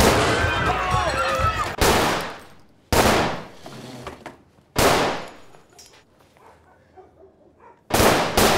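Pistol shots: five sharp cracks a second or two apart, each with a ringing tail that dies away before the next, the last two close together near the end. A voice cries out in the first second or so.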